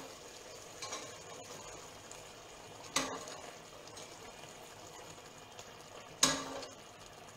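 Metal ladle knocking against a pot while broth is ladled out, with sharp clinks about three seconds in and again, louder, a little after six seconds, over a faint steady simmer.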